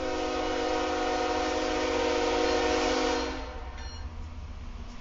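Lead BNSF GE ES44DC diesel locomotive's air horn sounding one long blast of several notes at once, cutting off about three seconds in. The locomotives' steady low rumble continues underneath as the train approaches.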